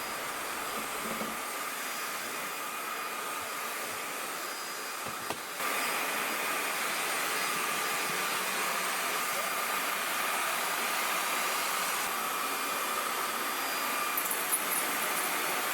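Aposen H250 cordless stick vacuum running with its roller brush head: a steady whooshing hiss with a high whine, which steps up in loudness about five and a half seconds in.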